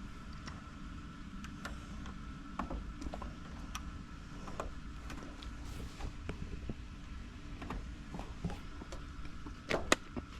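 Light scattered clicks and taps of tools and parts being handled at an air-conditioning unit with the power off, with a sharper click near the end, over a low steady background hum.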